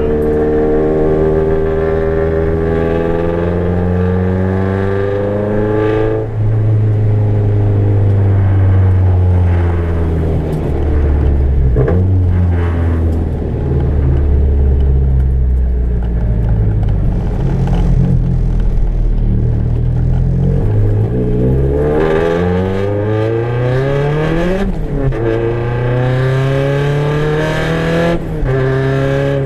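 Turbocharged Nissan KA24DET four-cylinder in a 240SX accelerating under about 7 psi of boost, with an exhaust leak. The revs climb for the first six seconds and fall away, then near the end rise steeply, drop sharply at a gear change and climb again before falling off.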